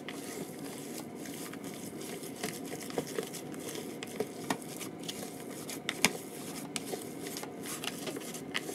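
Ground meat being mixed by a hand in a disposable plastic glove inside a plastic tray: steady squishing and crinkling, with a few sharp clicks, the loudest about six seconds in.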